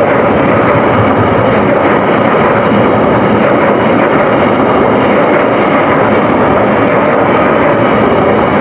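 Steady, loud rumble of a train at a station, even throughout with no starts or stops.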